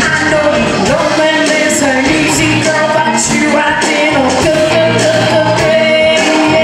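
Live blues: a woman sings into a microphone over an electric guitar, holding one long note from about two-thirds of the way through.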